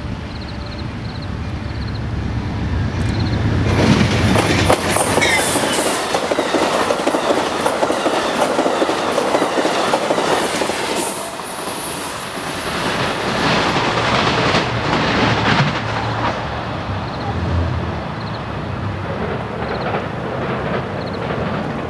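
Amtrak passenger train passing at speed. The noise of its wheels on the rails builds from about two seconds in, is loudest through the middle, and fades over the last few seconds.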